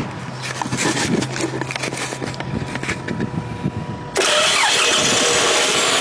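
A series of light taps on the starter motor while the key is held in the crank position. About four seconds in, the Toyota 16-valve four-cylinder engine suddenly cranks and starts running: the tap test has got the starter to engage.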